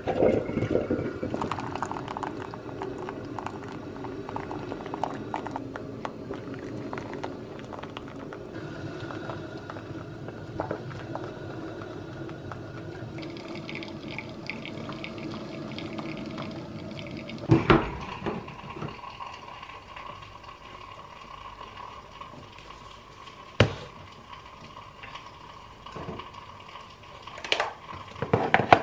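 Electric drip coffee maker brewing: water bubbling and gurgling as it heats and is pushed up through the tube, with coffee trickling into the glass carafe. About two-thirds of the way in this gives way to a few sharp knocks, followed by a cluster of them near the end.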